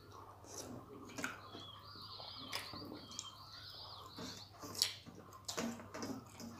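Quiet eating by hand: fingers mixing and squishing rice and fish curry on a steel plate, with chewing and scattered small clicks, one sharper click just before the end. Birds chirp faintly in the background.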